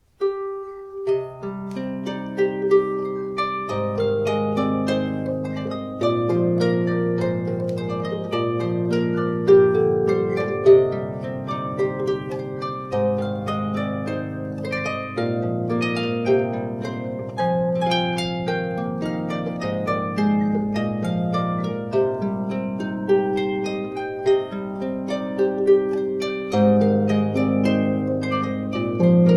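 Solo harp, made by Alexander Anushat, playing a melody of plucked notes over lower bass notes, each string left to ring on into the next.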